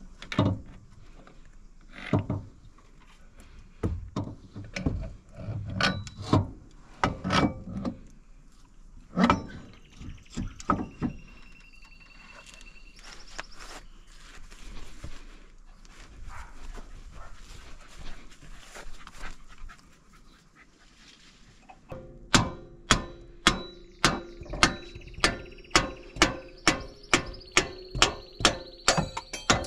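Irregular metal knocks and clanks as ATV axle and hub parts are handled and fitted, then a steady run of hammer blows on metal, about three a second, each strike ringing.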